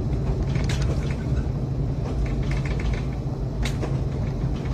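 A house shaking in a strong earthquake: a steady low rumble, with scattered knocks and rattles, about a second in and again near the end.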